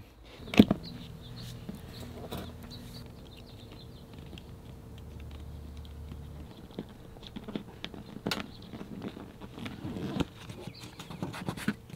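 Hands handling a silicone LED diffuser strip and its cable against the side of an RV: scattered small taps, clicks and scratching, with one sharp knock about half a second in, over a faint steady hum.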